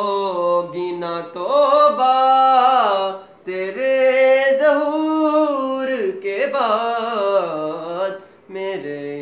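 A young man singing a manqabat, a devotional praise song, with no instruments: long held notes that slide up and down, in several phrases broken by short breaths.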